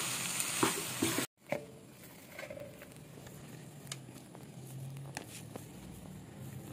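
A spatula stirring chopped bell peppers sizzling in a non-stick frying pan, with scraping strokes. It cuts off abruptly about a second in. After that, only a few faint taps and rustles of hands handling a roll of dough on a plastic cutting board are heard.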